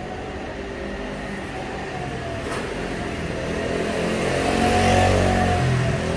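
A vehicle passing close by, its engine hum getting louder to a peak about five seconds in and then easing off.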